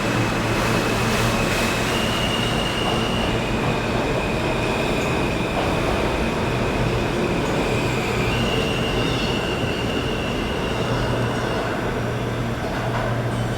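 R160 subway train running, a steady loud rumble with a low hum under it and thin high wheel squeal that shifts pitch a couple of times.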